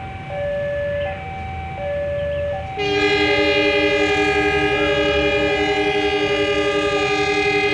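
A two-tone electronic warning signal alternates steadily, high and low, like a railway level-crossing alarm. About three seconds in, a locomotive air horn starts a loud, long, continuous blast, with a slight pulsing, that is still sounding at the end, over the low rumble of the approaching train.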